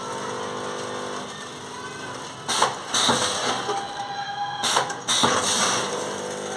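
Automatic pouch packing machine running through its cycle: a steady motor hum, broken twice, about two and a half seconds apart, by a short loud burst of noise as a pouch is sealed and cut.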